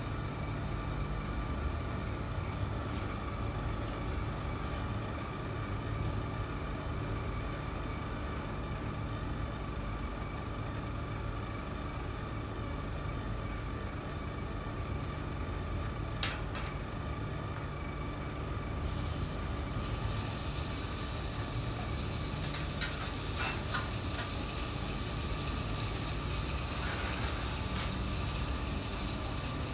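A steady hum of kitchen equipment, with a sharp clack a little past halfway; then about two-thirds of the way through a sizzle sets in and keeps going as raw chicken pieces go onto a hot electric flat-top griddle.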